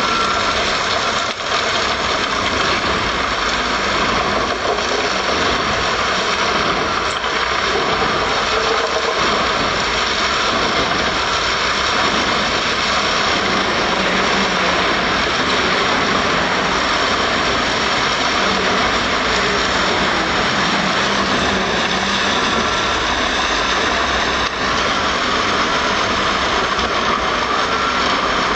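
Truck-mounted wood chipper on a MAN truck, running steadily and loudly as its loader crane feeds brush and branches into it.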